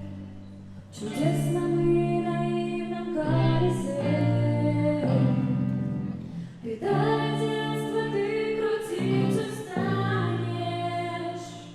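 A song sung by a woman's voice in long held notes, the phrases breaking off every second or two.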